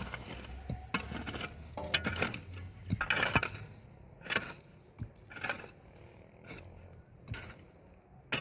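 Irregular knocks, clinks and rustles of objects being handled: a busy cluster in the first few seconds, then a few single clicks spaced a second or more apart.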